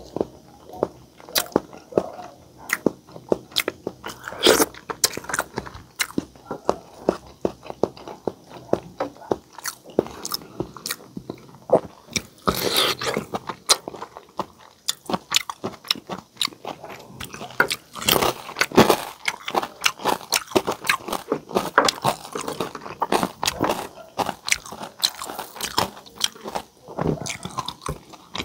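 Close-miked eating: wet chewing, lip smacks and crisp crunching bites, irregular and continuous, as crispy pata (deep-fried pork knuckle) and boiled egg are eaten by hand.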